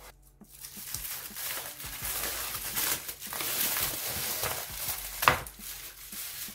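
Aluminium foil crinkling and rustling as it is handled and peeled off the base of a metal cake ring, with one sharp knock about five seconds in.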